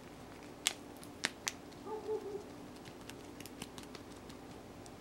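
Sharp plastic clicks and snaps as a two-piece Spigen phone case is pressed onto a smartphone: three distinct clicks in the first second and a half, then a few fainter ones near the end.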